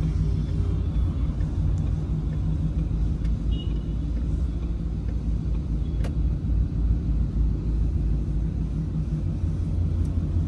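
Ford Mustang GT's 5.0-litre V8 running at a gentle, steady cruise, heard from inside the closed cabin as an even, deep rumble with road noise.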